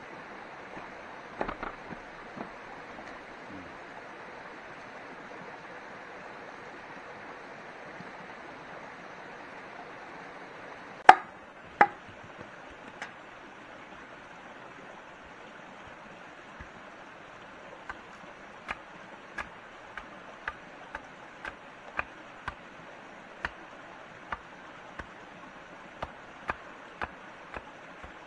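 Chopping on wood: a few light strikes, two sharp, loud knocks about eleven seconds in, then a run of light, regular strikes about two a second, over a steady rushing background noise.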